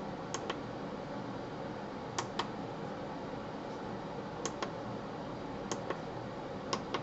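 Small push button on the back of an LED wall clock pressed five times, each press a quick double click of press and release, stepping the clock through its setting modes. A steady faint hiss underneath.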